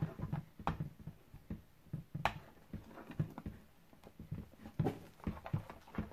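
A spoon stirring a thickening slime mixture in a bowl: irregular clicks and taps of the spoon against the bowl with soft low thuds, one sharper click about two seconds in.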